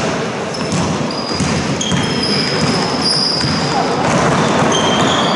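Basketball game on an indoor court: sneakers squeaking in short high chirps on the hall floor and the ball thudding as it is dribbled, over a steady echoing hubbub with voices.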